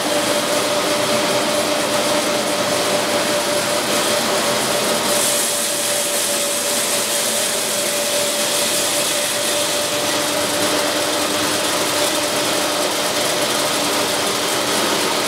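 Fish scale-removing and back-opening machine running: a steady, loud whir with a hiss over it and a constant hum-like tone.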